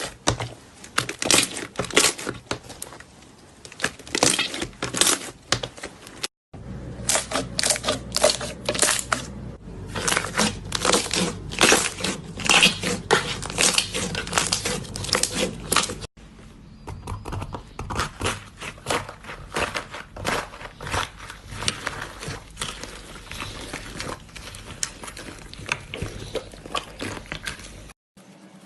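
Slime being handled, giving a rapid run of sticky pops and crackles. The sound changes abruptly about six and sixteen seconds in.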